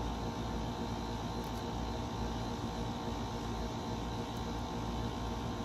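A steady low hum with a hiss over it, even in level, like a machine running at a distance.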